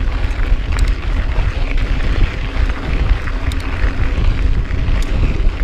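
Wind rumbling and buffeting on the camera microphone, over tyre noise from a mountain bike riding fast on a dirt trail.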